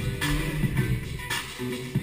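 DJ's battle music playing, with a steady drum beat and a low pitched melody line.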